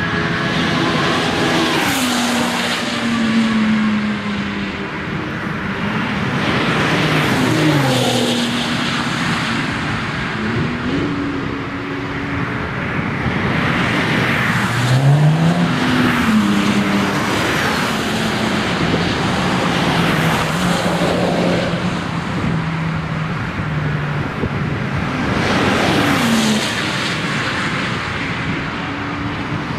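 A string of cars passing one after another at speed on a racetrack, each engine note rising and falling in pitch as it comes up and goes by, with several overlapping at times.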